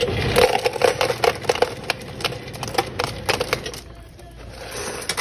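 Rapid crackling and crinkling handling noise, thickest in the first three and a half seconds and thinning near the end, with music underneath.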